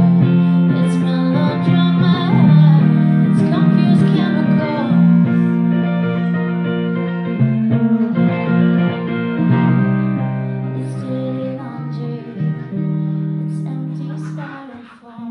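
Live music: a solo electric guitar strummed through an amplifier while a woman sings, the sound dropping away briefly near the end.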